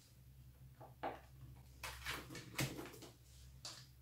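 Soft handling sounds of flaky palmier cookies being picked up and laid onto cream inside a metal cake ring: about six short, light rustles and taps, over a low steady hum.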